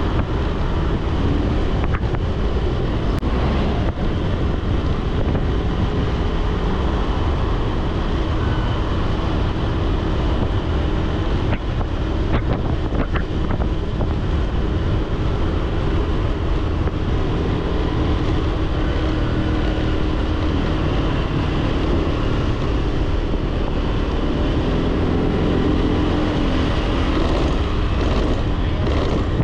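Wind buffeting the microphone and steady road noise from a motorbike riding at speed. A few faint clicks come about halfway through.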